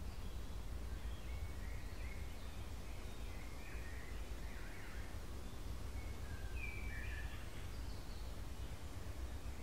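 Outdoor ambience: a steady low rumble under faint, scattered bird chirps, with one clearer call about seven seconds in.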